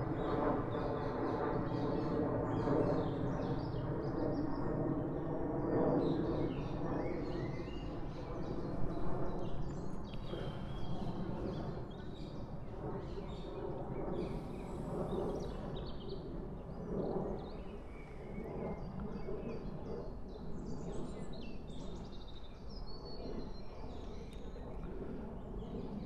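Outdoor ambience of birds chirping and singing in short, scattered calls over a steady low background noise, with a faint hum that fades away after the first few seconds.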